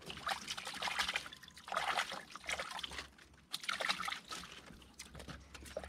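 A hand splashing and sloshing in shallow water pooled in the bottom of a wooden boat, in several short bouts with trickling in between.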